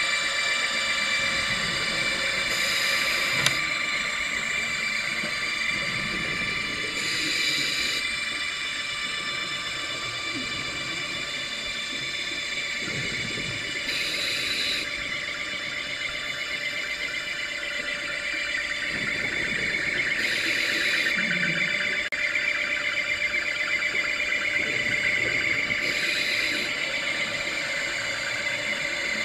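Submarine thrusters heard underwater as a steady, many-toned whining squeal. A scuba regulator's exhale hisses and bubbles about every six seconds over it.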